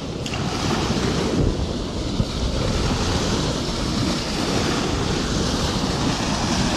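Small waves washing up on a sandy shore, with wind buffeting the microphone.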